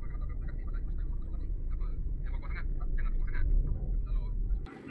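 Steady low rumble of car road and engine noise heard inside the cabin, with faint talk over it; the rumble cuts off abruptly near the end.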